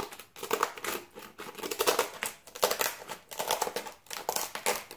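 Scissors cutting off excess self-adhesive sandpaper from a longboard sander: an irregular run of sharp snips, several a second.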